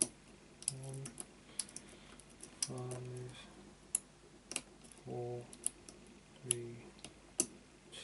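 Lock pick and tension wrench in the keyway of a brass Avocet padlock, making scattered sharp metallic clicks as the pick works the pin tumblers and spool pins. Four short low hums of a voice come between the clicks.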